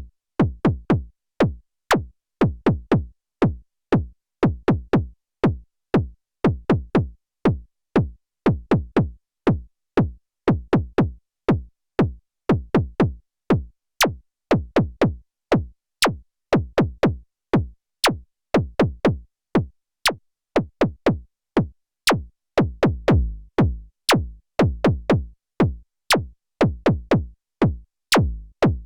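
KORG Volca Kick analog synthesizer playing a sequenced electronic pattern of punchy kick drums, each hit with a sharp click on top and deep low end. The bass notes ring longer and fuller about two-thirds of the way in.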